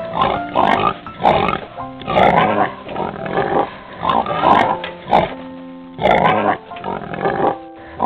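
Pigs in a barn giving repeated short, noisy cries, about one or two a second, over background music with held notes.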